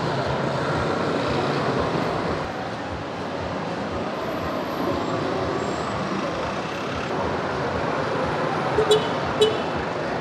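Street traffic: motor scooters and cars passing in a steady wash of engine and road noise. Two short sharp beeps sound about half a second apart near the end.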